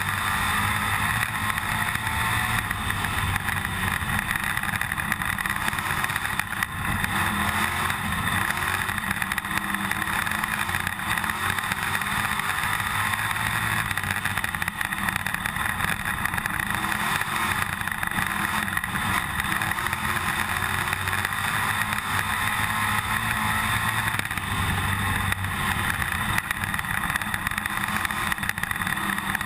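IMCA dirt-track stock car's V8 engine running hard at race speed, heard from inside the cockpit, steady throughout over a constant rattle of the car.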